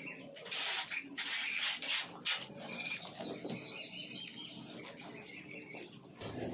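Small birds chirping, short high calls, with a few brief rustling or clattering noises in the first couple of seconds.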